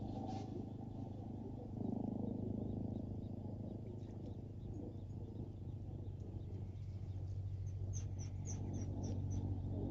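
A bird chirping: a quick run of about seven short high notes near the end, over steady low outdoor background noise.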